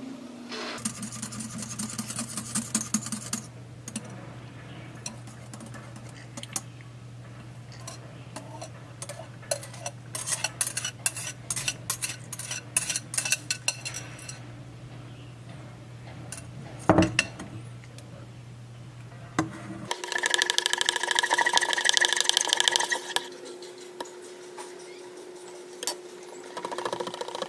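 Utensil stirring and scraping in a bowl, with irregular clinks, as slime is mixed. A low steady hum runs underneath until a changed, denser sound with steady tones takes over about two-thirds of the way through.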